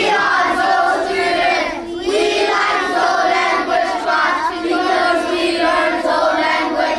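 A group of children singing together, holding long notes, with a short break between phrases about two seconds in.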